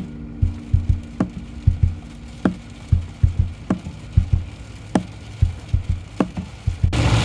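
Rain pelting the windscreen and roof of an Isuzu Panther, heard inside the cabin as irregular knocks, with the windscreen wiper giving a short squeak at each sweep, about every one and a quarter seconds. About seven seconds in, a loud steady rush of road and rain noise sets in abruptly.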